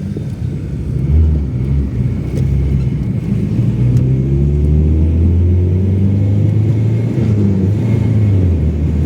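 Audi 80 B4's 2-litre four-cylinder single-point-injection engine running fully warmed up. Its pitch rises about halfway through, holds, then drops back near the end.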